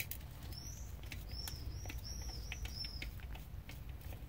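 Small clicks and taps of hands and a tool working on a plastic drill battery pack, beginning with one sharp click. From about half a second in comes a run of about five short, high chirping squeaks.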